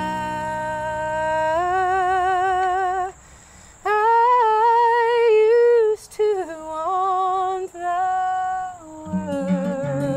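Wordless singing: long held notes with vibrato, with a short break about three seconds in. The acoustic guitar drops out and comes back in near the end.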